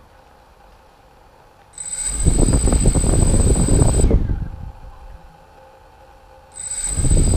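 A small motor switched on for about two seconds, then off, then on again near the end: a steady high whine over a rough, rumbling noise each time it runs.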